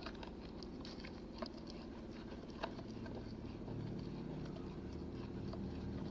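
Faint stirring of a glue and liquid-soap slime mixture in a container that is nearly clumping, with a few soft clicks of the stirrer against the container over a low steady hum.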